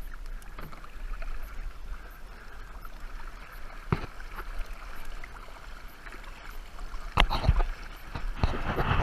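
Water lapping and sloshing against a kayak hull as it moves slowly along, with a sharp knock about four seconds in and a few louder knocks near the end.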